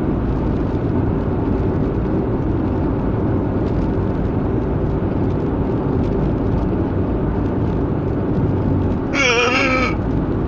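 Steady car cabin noise from driving, a low rumble of engine and road. Near the end comes one brief voiced sound of about a second, wavering in pitch.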